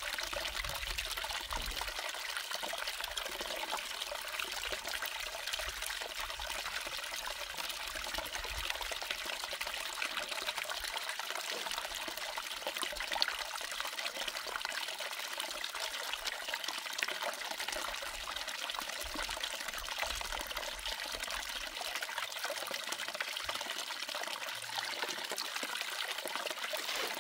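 Water pouring steadily into the head of a small hose-fed gold sluice and running down its mat.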